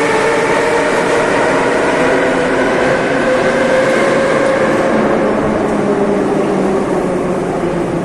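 Moscow Metro train pulling into the station and slowing: a whine of several steady tones over the rumble of the wheels on the rails. It eases off a little near the end as the train comes almost to a stop.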